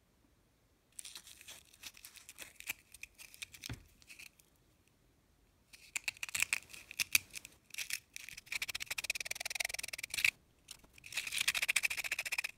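A hand-held quarter being rubbed with an abrasive by hand, smoothing the rough edge left where its centre was punched out: quick rasping strokes of abrasive on metal in three spells, with short pauses between.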